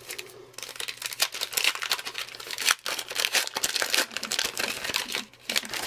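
A 2020 Topps Gypsy Queen trading-card pack being torn open by hand, its wrapper crinkling and crackling in a dense run of small crackles, with a short break a little before halfway.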